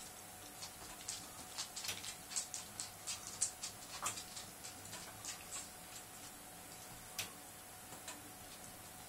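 A beagle licking and mouthing another dog's face: a quick, irregular run of soft wet smacking clicks, busiest in the middle seconds, with one sharper click near the end.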